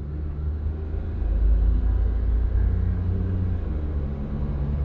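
A car driving along, heard from inside the cabin: a steady low rumble of engine and tyres, with an engine hum that shifts in pitch a couple of times.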